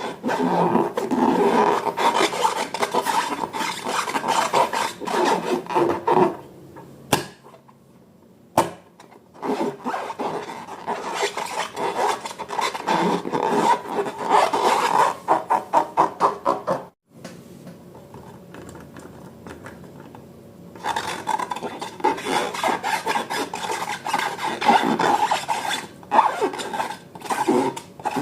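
Slime being squeezed, stretched and kneaded by hand, giving dense sticky crackling and squelching in long stretches, with two quieter pauses.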